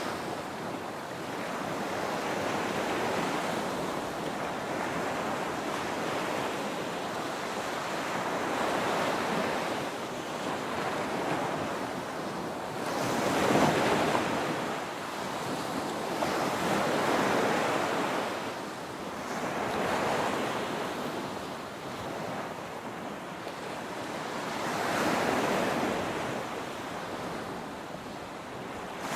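Ocean waves breaking and washing up the beach: a continuous surf noise that swells and eases every few seconds, with the biggest surge about halfway through.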